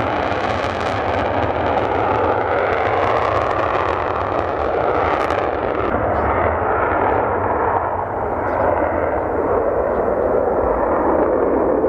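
Twin-engine F/A-18 Hornet fighter taking off on afterburner: loud jet engine noise through the take-off roll, turning duller about halfway through as the jet lifts off and climbs away.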